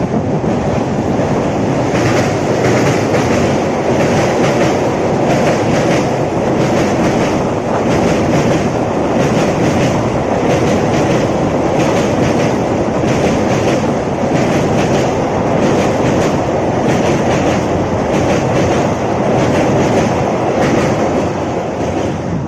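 Passenger train crossing a steel river bridge: a loud, steady rumble with a rhythmic clatter of wheels over rail joints, about one to two beats a second.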